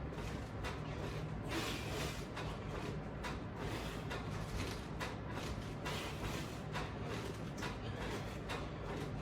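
Faint, irregular rustles and creaks from pull-down crunches on resistance bands and straps, repeating about every half second to a second over a steady low hum.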